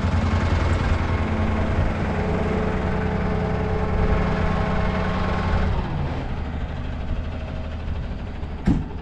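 Truck engine running steadily; its note drops and eases about six seconds in. A single sharp clank comes near the end.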